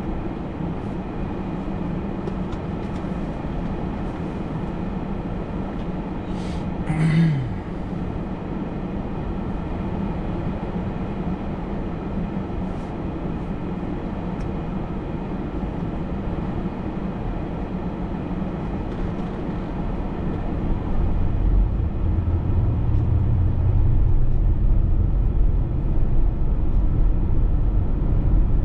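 Vehicle engine and road noise heard from inside the cabin while driving. About seven seconds in there is a brief louder sound that drops in pitch. Some twenty seconds in the low rumble grows louder, as when the vehicle speeds up.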